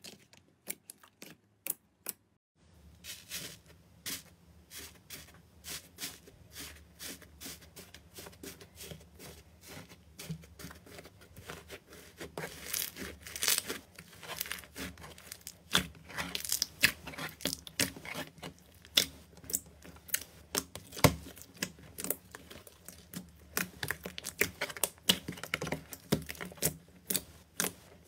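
Hands squishing and kneading slime, making sticky clicks and crackling pops as air pockets burst. The clicks are sparse at first, then come thick and fast from about two seconds in, over a faint low hum.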